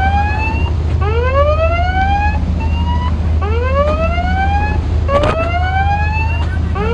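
A patrol ship's electronic warning siren sounding repeated rising whoops, about one a second, over the steady low drone of ship engines. A brief knock comes about five seconds in.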